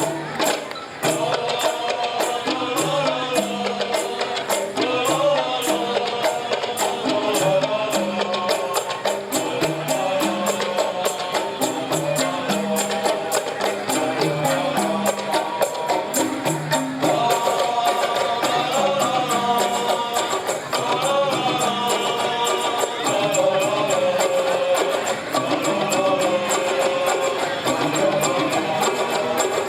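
Qasidah ensemble music: frame drums and a tambourine keep a steady, busy rhythm under a wavering melody line and a stepping bass.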